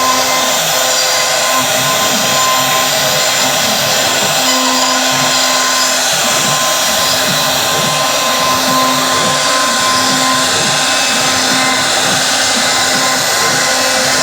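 CNC wood router running steadily as it cuts wood, a constant high whine over the cutting noise, with a lower hum that comes and goes.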